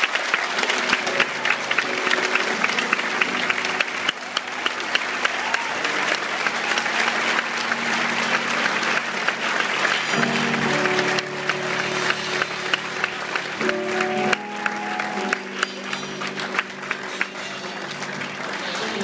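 Congregation applauding steadily while an instrument plays sustained chords that change every few seconds.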